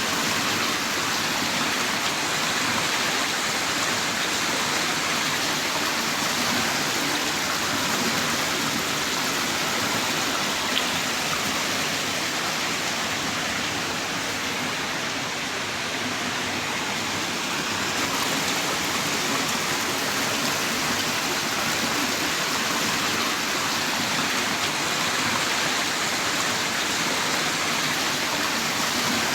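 Heavy rain pouring down in a steady, dense hiss, with no letup.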